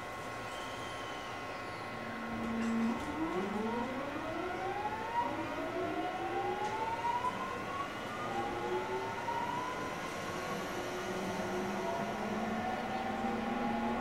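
Mitsubishi GTO-thyristor VVVF inverter and traction motors of a 209 series 500-subseries electric train accelerating. A steady low tone about two seconds in gives way to several whines that climb in pitch together, and then further tones rise slowly and hold over the steady running noise.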